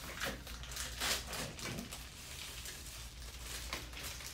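Rustling and crinkling of sterile medical packaging in irregular bursts, loudest about a second in, as a Foley catheter's peel-open wrapper is handled and the catheter is drawn out. A low steady hum runs underneath.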